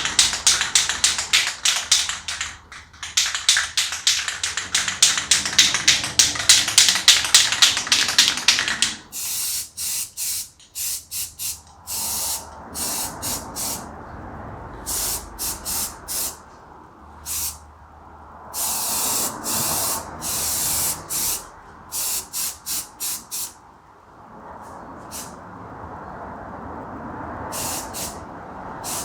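Aerosol can of 2X spray primer spraying. For about the first nine seconds it is a fast, pulsing hiss; after that it comes in short stop-start bursts.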